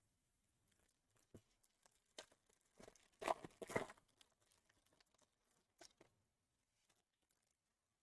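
Faint rustling and soft clicks of trading cards and pack wrapper being handled, a few scattered touches with a short busier patch about three seconds in.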